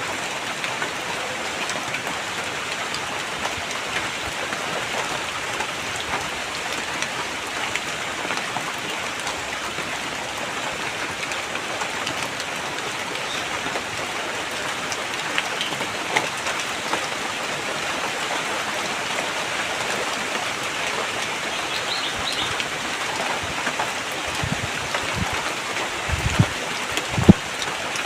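Steady rain falling and pattering on surfaces. A few short low thuds sound in the last few seconds, the loudest just before the end.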